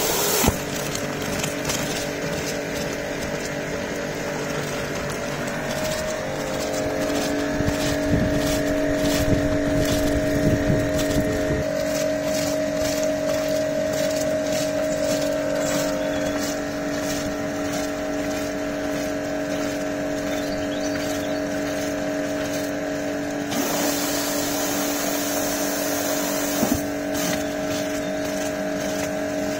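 Kärcher K5 Compact pressure washer running steadily, with a steady motor-and-pump hum under the hiss of water jetting from a rotating surface-cleaner attachment onto wet paving. A patch of ticks and clatter comes in the middle.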